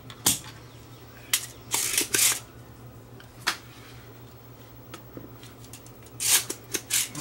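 Spring-loaded plastic solder sucker (desoldering pump) being worked: a sharp snap about a third of a second in, clicks and clatters of the plunger around two seconds in, and another cluster near the end. The pump's tip is clogged with solder. A low steady hum runs underneath.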